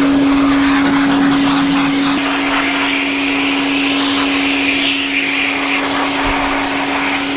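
Canister vacuum cleaner running steadily, its motor giving a constant hum over the rush of air through its hose, used as a blower to dry off the wet car.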